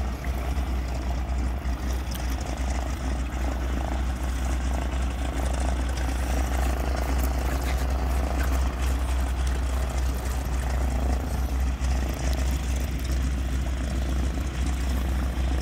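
A de Havilland Canada DHC-2 Beaver floatplane's engine and propeller running steadily at a distance as it taxis on the lake, with a strong low rumble underneath.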